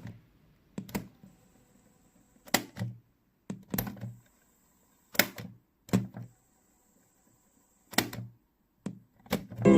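Panda W10 cassette player being operated by hand: a series of sharp mechanical clicks and clunks from its keys and cassette mechanism, some in quick pairs. A faint high whine sounds between some of them.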